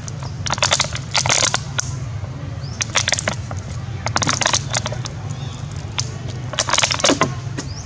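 Empty plastic water bottle crinkling and crackling as a young macaque bites and squeezes it, in several short bouts of crackles.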